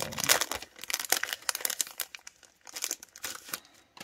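Clear plastic packaging on a sticker sheet crinkling as it is handled and pulled open. The crinkling is densest in the first two seconds, with a few more scattered crackles around three seconds in.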